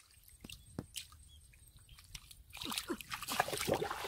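Hands digging and squeezing through wet mud in shallow muddy water, squelching and sloshing. Scattered small wet clicks come first, then a louder run of squelches in the second half.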